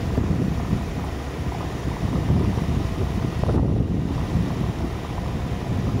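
Wind buffeting the microphone: an uneven low rumble that swells and dips with the gusts.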